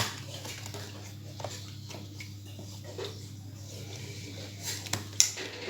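A few light clicks and taps as the laptop's SSD and drive bay are handled, the sharpest about five seconds in, over a steady low hum.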